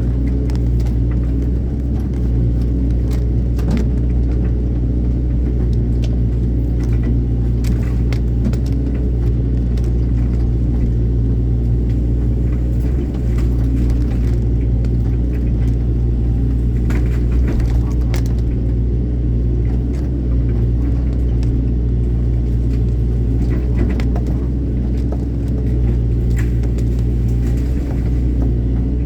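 Excavator's diesel engine running steadily under load, a deep continuous rumble, with scattered sharp clicks and knocks over it.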